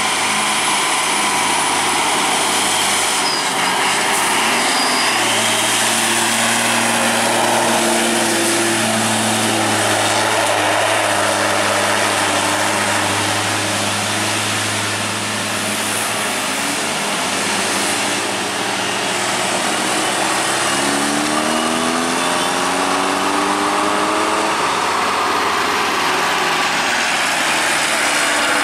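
Traffic noise dominated by a Hino dump truck's diesel engine and other passing vehicles. A steady engine drone runs through the middle, and an engine rises in pitch about twenty seconds in.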